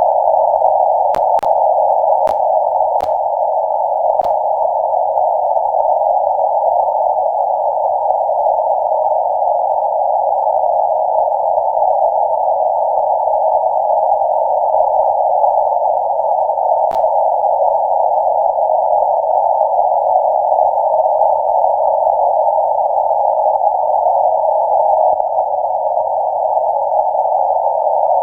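Shortwave receiver static heard through a narrow CW filter on a web-based SDR: a steady, hollow band of hiss with no clear on-off keying of Morse. Several sharp clicks come in the first few seconds, and one more about midway.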